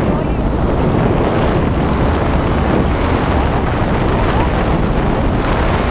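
Steady wind rushing and rumbling over the camera's microphone during a tandem parachute descent under an open canopy.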